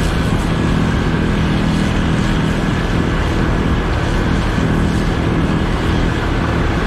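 Heavy diesel machinery running steadily: the Mack truck and the snowblower loading snow in front of it. A low drone with a faint, thin high whine above it.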